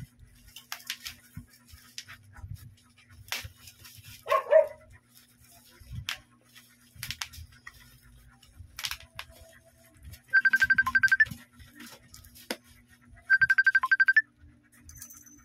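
Plastic wrapping crinkling and rustling in scattered bursts as a tripod is unwrapped from a black plastic bag. Twice, a loud, rapid electronic trill at one pitch sounds for about a second, the two some three seconds apart, louder than anything else.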